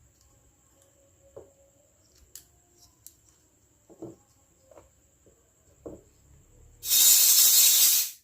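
Light taps and clicks of small toy pieces being handled, then a loud, steady hiss lasting just over a second that cuts off abruptly near the end.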